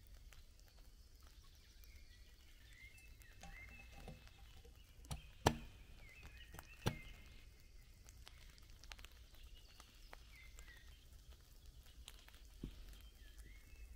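A few sharp knocks about five to seven seconds in, the middle one loudest, from hand work on the dugout roof. Birds chirp off and on throughout over a low outdoor rumble.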